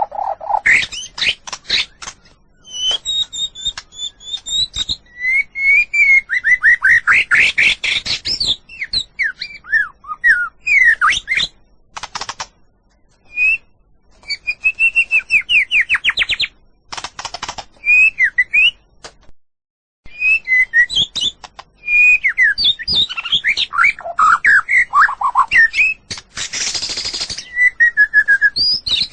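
White-rumped shama (murai batu) singing a long, varied song: clear whistled phrases, rapid trills and several harsh, buzzy bursts, with one short pause about two-thirds through.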